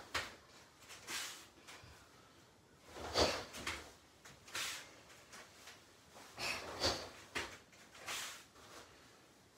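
Swishes and rustles of karate uniforms and bare feet on foam mats during front snap kicks, coming every second or two at an uneven pace.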